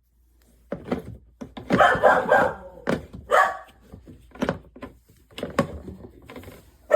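Irregular knocks, thuds and clatter of the plastic parts of a twin-tub portable washing machine being handled and pushed back into place.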